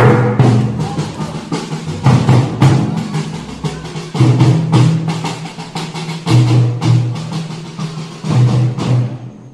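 Music with a regular drum beat over sustained low chords, cutting off near the end.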